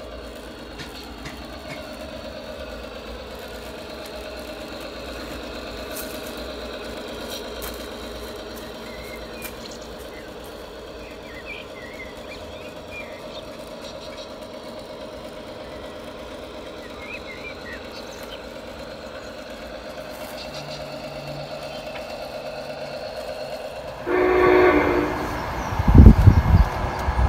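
G-scale model locomotives running, with a steady hum of motor and engine sound. About three seconds before the end, a steam locomotive's sound unit gives a loud chime-whistle blast, followed by heavy low chuffs.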